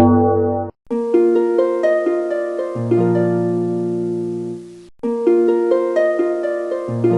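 Background music: a phrase of plucked, harp-like notes over a held bass, breaking off briefly and starting again about every four seconds.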